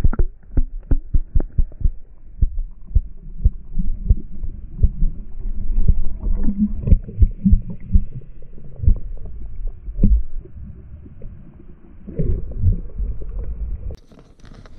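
Muffled sound from an action camera held underwater in a stream: a run of dull low thumps and knocks as water and the hand move against the housing, with only a low rumble between them. Near the end the camera comes out of the water and the open-air sound of the water returns.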